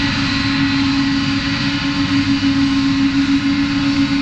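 Boeing 777-200's turbofan engines running at taxi power as the airliner rolls slowly past: a loud, steady drone with a strong low hum and fainter high whining tones above it.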